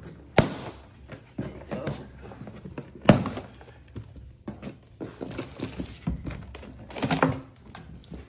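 A knife cutting plastic packing straps off a cardboard box while the box is handled: a run of clicks, knocks and cardboard rustling. Two sharp knocks stand out, about half a second in and about three seconds in.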